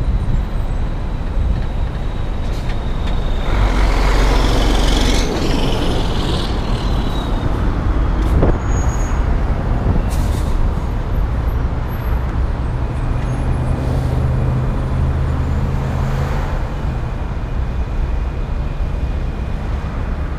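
Road traffic passing close by on a multi-lane road, a steady rush of cars and trucks going past. The loudest pass comes about four seconds in.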